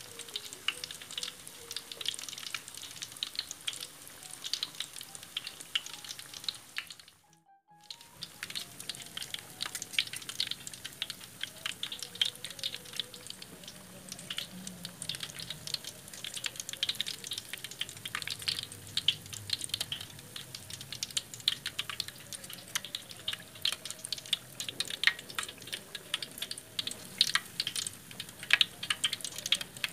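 Noodle-and-vegetable-stuffed tofu deep-frying in a wok of hot oil: a steady sizzle with dense crackling. There is a short break about seven seconds in.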